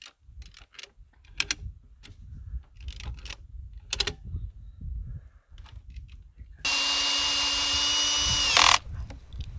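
A few sharp clicks as the ratchet strap round the mitred corner is tightened, then, about two-thirds of the way in, a cordless drill driver runs steadily for about two seconds driving a screw into the oak slabwood, with a short louder burst just before it stops.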